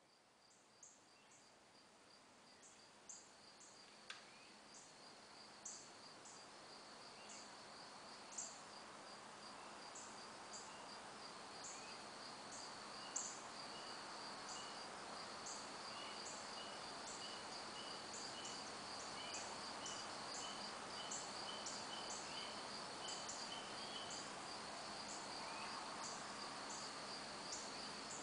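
Crickets chirping at dusk: a steady high trill, with sharp short chirps repeating above it and a run of softer chirps in the middle. Underneath is a faint rushing background that grows louder over the first half.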